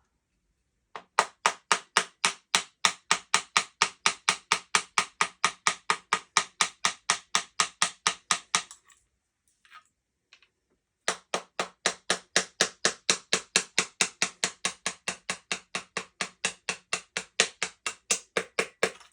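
Steady, even tapping, about four knocks a second, in two long runs with a pause of about two seconds between them. This is a stuck takedown pin of a Panzer EGX 500 bullpup shotgun being tapped out.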